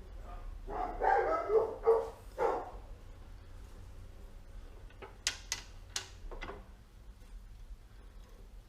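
A dog barking a few times, followed about five seconds in by several sharp clicks or taps.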